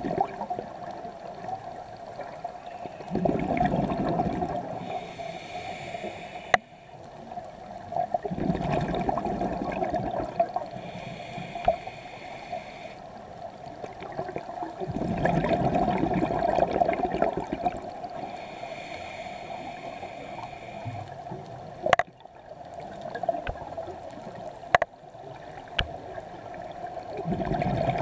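Scuba diver breathing through a regulator underwater: a hissing inhale followed by a rumbling gush of exhaled bubbles, repeating about every six to seven seconds, four exhales in all, with a steady low hum and a few sharp clicks between breaths.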